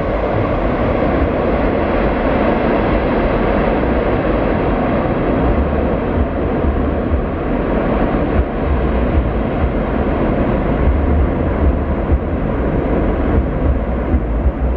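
Jet engines of a Boeing 777-200ER on the runway, running loud and steady and growing slowly duller as the aircraft moves away. Irregular low rumbles of wind on the microphone come in the second half.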